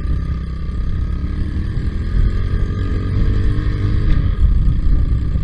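Quad bike engine running under load as it is ridden over rough ground, its note rising gently in the middle. Heavy wind buffets the microphone.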